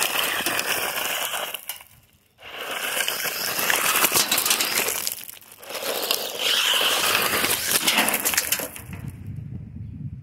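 WLtoys 124019 RC buggy tearing across loose gravel: tyres crunching and spraying stones with a dense crackle, over the high whine of its electric motor. The sound drops out briefly about two seconds in and eases off near the end.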